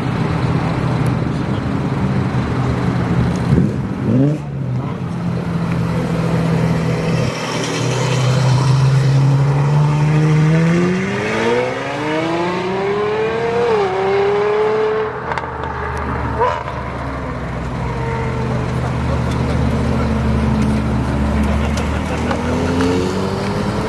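A sports car's engine running steadily, then revving hard as the car accelerates away, its pitch climbing for several seconds with a short dip at a gear change, then fading. Near the end another engine starts rising in pitch as a second car pulls away.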